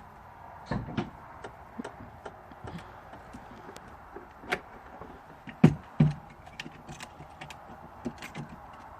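Hard-sided A-frame camper panels being folded down by hand: scattered clicks and knocks, with two louder thumps close together a little past halfway.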